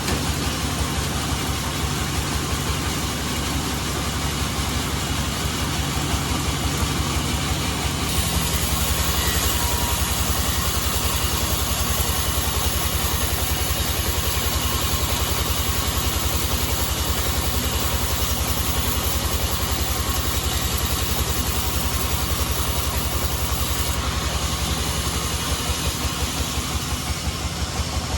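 Band sawmill running: a steady engine drone with a fast, even pulse. From about eight seconds in until about twenty-four seconds a brighter hiss joins it, as the blade cuts through a teak log.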